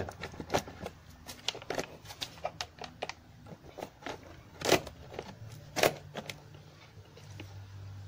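Hand pop-rivet pliers squeezed stroke after stroke to pull a rivet through a plastic drip tray: a run of light clicks from the tool's jaws and handles, then two louder clicks about a second apart around the middle. The mandrel has not yet snapped, so the rivet is still being drawn tight.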